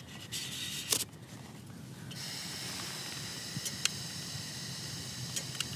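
A sharp click, then from about two seconds in a steady hiss of gas from a Jetboil Flash backpacking stove's burner as it is turned on to boil water. A few light clicks sound over the hiss.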